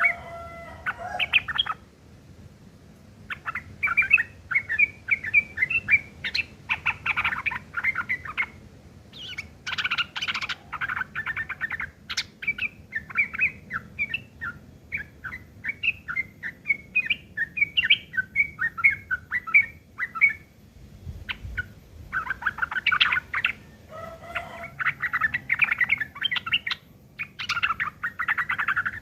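Sooty-headed bulbul (trucuk) singing a rough, rapid chattering song in repeated phrases with short pauses between them. The song is laced with imitations of long-tailed shrike (cendet) calls.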